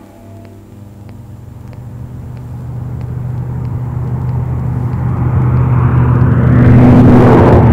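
A road vehicle passing: a low engine rumble that builds steadily over several seconds and is loudest near the end.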